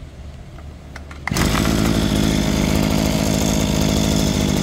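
Kawasaki TH26 26cc two-stroke brush cutter engine starting about a second in and then running steadily.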